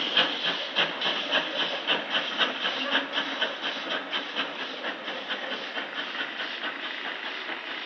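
Small steam tank locomotive pulling away under power, its exhaust beating in an even rhythm of about three chuffs a second over a steady hiss. The beats fade as it moves off.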